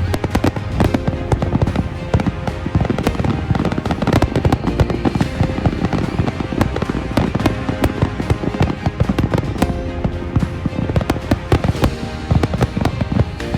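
Fireworks going off in a rapid, continuous string of bangs and crackles, with music playing throughout.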